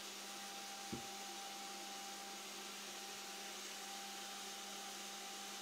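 Workshop vacuum running with a steady whine as its hose sucks milling chips off a CNC router's bed, with one short knock about a second in.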